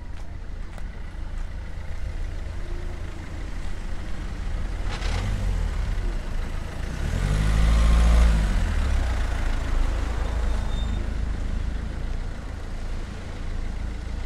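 Street traffic over a steady low rumble: one motor vehicle passes briefly about five seconds in, then another passes close by, its engine pitch rising and falling, loudest about eight seconds in.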